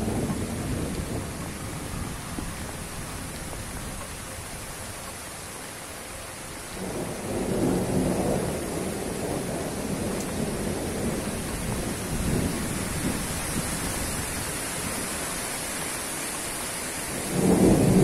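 Strong wind rushing through oil palm fronds and buffeting the microphone. Two sudden gusts swell louder, one about seven seconds in and one near the end.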